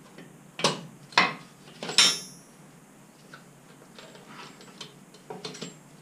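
Metal parts and tools clanking: three sharp strikes within the first two seconds, the third ringing briefly, then a few light taps and clicks.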